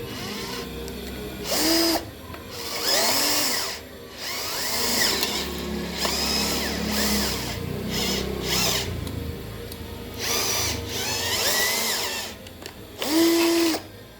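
Drill running a metal-shear cutting adapter through 0.75 mm steel roofing sheet, in several spurts with short pauses, the motor's pitch rising and falling as the trigger is worked and the blade bites the sheet.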